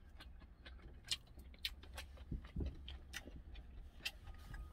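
Plastic fork clicking and scraping against an opened metal tuna can: a scatter of small, sharp ticks, over a low steady hum.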